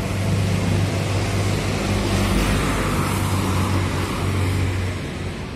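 Road vehicle engines running with a steady low hum, and one vehicle going by louder about two to three seconds in.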